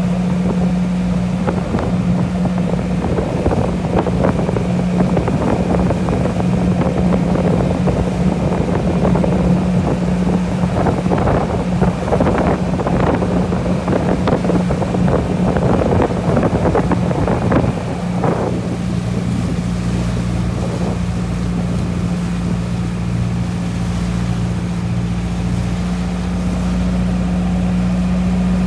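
Small harbour passenger ferry under way, its engine giving a constant hum, with rushing water and wind on the microphone. The rough water-and-wind noise eases about two-thirds of the way in, leaving the steady engine.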